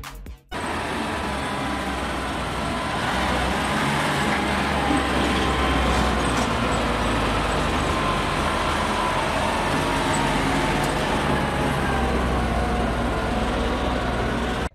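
Heavy dump truck's diesel engine running steadily as the truck moves slowly, a dense steady noise that starts about half a second in and holds evenly throughout.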